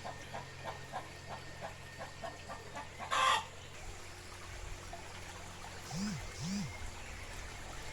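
Backyard chickens clucking in a run of short regular clucks, about three a second, with one short, loud squawk about three seconds in.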